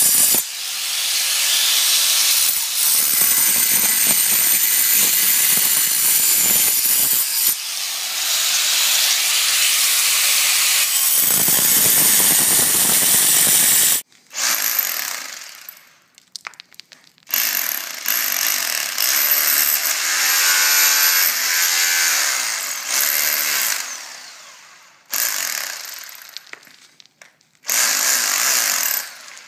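Angle grinder cutting into a concrete pool wall, running steadily under load for about the first half. Then a Makita rotary hammer in chisel mode chipping out the concrete in several bursts of a few seconds each, stopping and starting.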